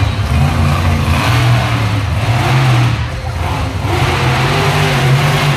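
Monster truck engine revving hard, its pitch rising and falling several times.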